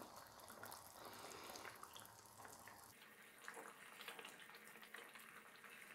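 Fish curry gravy simmering in a pan: faint bubbling with many small pops and ticks.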